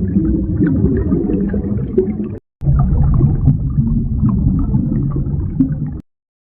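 Made-up anglerfish creature sound effect: a low, rough, rumbling call that breaks off briefly, starts again, and stops shortly before the end.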